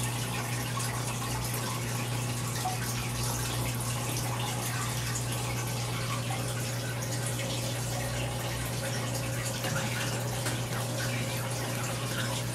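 Aquarium filter running: a steady rush of trickling, splashing water over a constant low hum.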